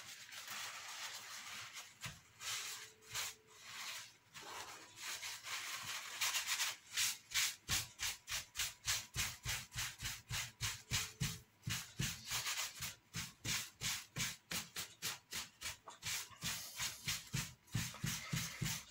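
Paper tissue rubbing back and forth over an MDF board, wiping excess glue off a glued join. It rubs more softly at first, then from about six seconds in settles into quick, even strokes, about three a second.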